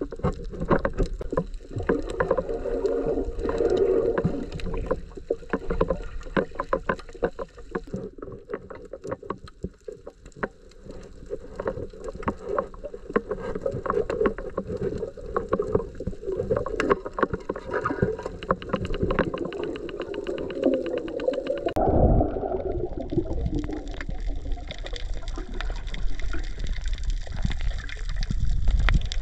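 Underwater sound picked up by a submerged camera: a constant wash of water noise crowded with fast crackling clicks, which changes character abruptly about three-quarters of the way through.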